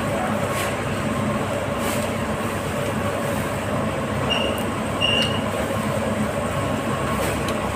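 Steady droning background noise with a faint hum in it, and two short high beeps about four and five seconds in.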